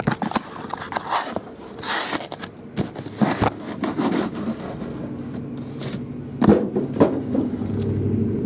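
Scraping and crinkling of packaging being handled and opened, followed by two sharp knocks about six and a half and seven seconds in.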